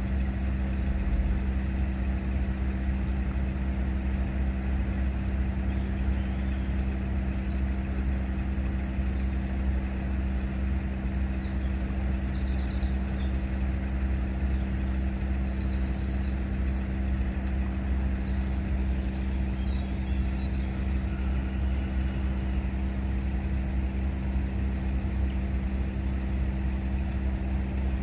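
A car idles at a closed level crossing under a steady low rumble and a constant low hum. About halfway through, a small bird chirps in a quick burst of high notes lasting several seconds.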